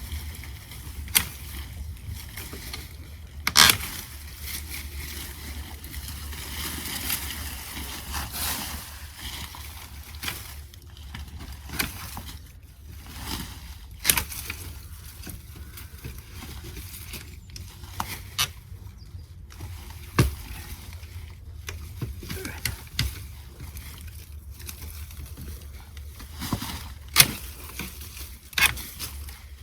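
Loppers cutting through Pittosporum stems: sharp snaps every few seconds, irregularly spaced, over a steady rustle of leafy branches being handled.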